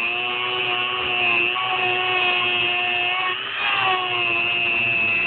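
Dremel rotary tool with a cutoff wheel running and cutting into the rim of a Toyota EGR vacuum modulator, a steady high whine over grinding. The whine dips in pitch briefly about three and a half seconds in.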